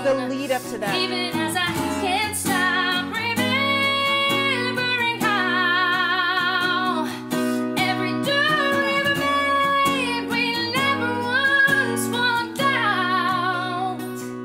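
A woman sings a musical-theatre ballad to acoustic guitar accompaniment, holding long notes with a wide vibrato.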